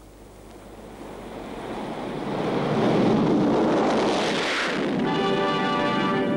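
Twin-engine propeller aircraft passing low overhead: its engine noise swells over a few seconds, peaks as it passes with a brief rise and fall in pitch, then fades. Music with held chords comes in about five seconds in.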